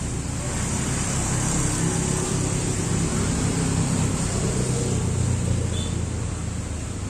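Strong gusting wind buffeting the microphone with a low rumble and rushing through trees. It swells about a second in and eases near the end.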